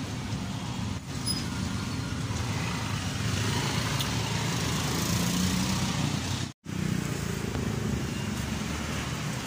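Street traffic noise: vehicle engines running and passing on a road, a steady low rumble. The sound cuts out for a split second about two-thirds of the way through.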